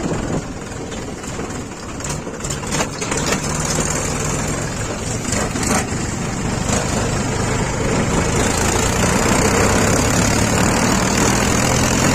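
Mahindra 275 tractor's three-cylinder diesel engine running steadily under way, heard from the driver's seat. It grows gradually louder through the second half, with a few brief knocks about two and six seconds in.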